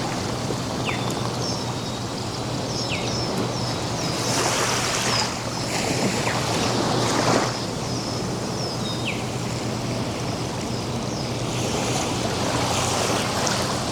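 Ocean surf breaking and washing up the beach, with one wave surging louder in the middle. Birds call over it in many short high chirps and a few whistles that slide downward.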